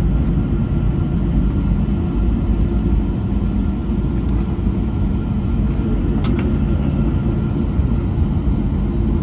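Steady low cabin rumble of a Boeing 737-800 rolling along the ground after landing, heard from inside the cabin, with a faint click about six seconds in.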